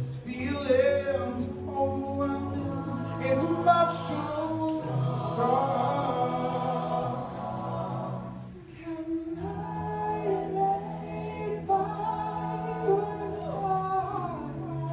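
A cappella group singing: a male lead voice sings a slow melody over sustained chords and a bass line sung by the ensemble. The backing chord drops away briefly about two-thirds of the way through, then comes back in.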